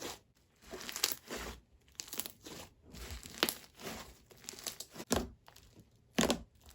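Slime being squeezed and stretched by hand, giving irregular crackling, popping and sizzling sounds.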